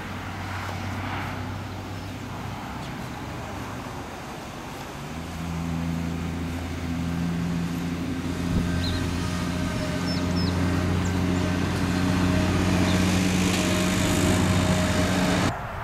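Ford New Holland 1725 tractor's three-cylinder diesel engine idling steadily, getting louder about five seconds in. The sound stops suddenly near the end.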